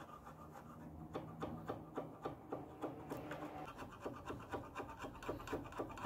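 A bevel-edged steel hand tool scraping in short, quick strokes along a clamped steel bar and raising curled shavings, about three or four strokes a second from about a second in.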